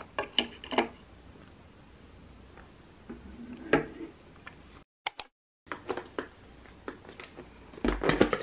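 Knife and fork clinking and scraping against a plate as an open sandwich is cut, in a few short sharp taps. After a brief break, clicks and handling noise from a clear plastic yogurt tub being picked up and held.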